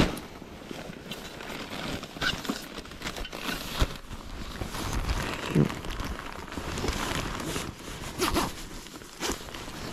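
Irregular rustling, crinkling and zipper-like handling noises of clothing and gear, with the snowmobile's engine not running.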